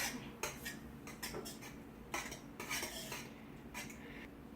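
A utensil clinking and scraping against a bowl in short, scattered strokes as an egg mixture is mixed.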